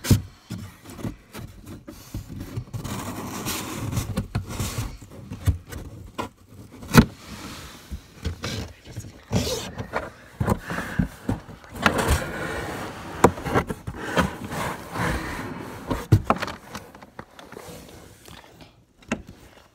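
Cardboard box flaps being pushed and scraped from inside the box, with rustling and irregular sharp knocks and thumps against the cardboard as the flaps refuse to close all the way.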